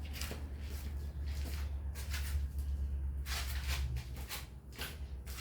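Irregular soft scratches and small clicks of hands handling small switch-housing parts, over a steady low hum.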